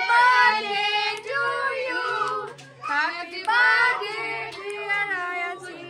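A group of people singing together, children's voices among them, in sung phrases with held notes and a short break about two and a half seconds in.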